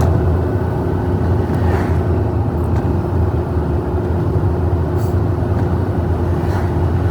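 Road vehicle driving, a steady low rumble of engine and tyres.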